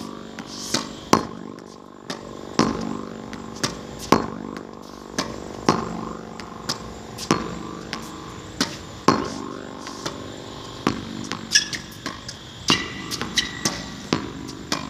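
Tennis ball rallied against a practice wall: a steady run of sharp pops, about one or two a second, as the racket strikes the ball, the ball hits the wall and bounces on the hard court. A steady hum runs underneath.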